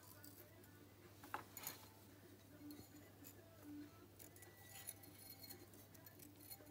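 Near silence with a low steady hum and a few faint, light metallic clicks, two of them about a second and a half in, as a thin steel oil-ring expander spring is worked into the groove of a moped piston by hand.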